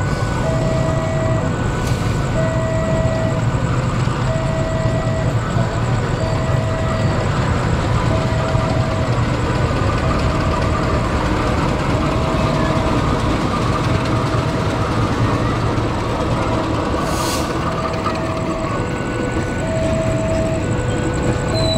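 A railway level-crossing warning alarm repeats a short two-tone electronic chime about once a second. Under it runs the steady low drone of a CC201 (GE U18C) diesel-electric locomotive moving past with its coaches.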